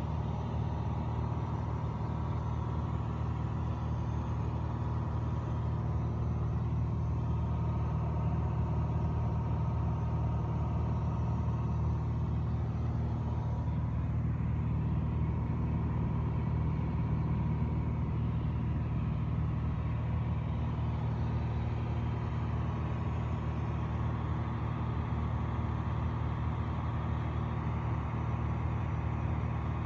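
Cabin noise of a Piper PA-28-236 Dakota in cruise: its six-cylinder Lycoming O-540 engine and propeller in a steady low drone.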